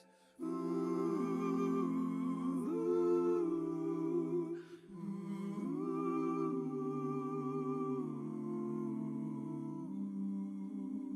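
Several voices humming slow, held chords in harmony, a cappella, as the opening of a gospel song. The humming begins after a short silent gap at the very start.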